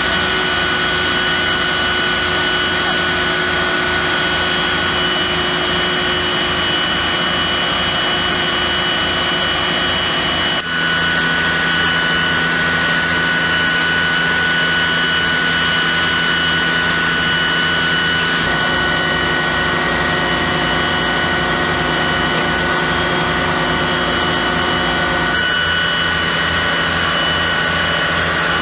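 Fire-service truck machinery running steadily: an engine drone with a steady high whine over it. The tone and mix change abruptly about ten seconds in and again near the end.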